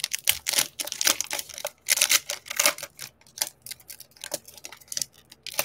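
Foil wrapper of a 2020 Topps Fire baseball card pack being torn open and crinkled by hand: a dense run of crackles and rips that thins out over the last couple of seconds.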